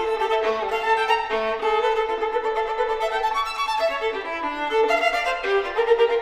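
Unaccompanied solo violin playing a quick-moving passage of bowed notes.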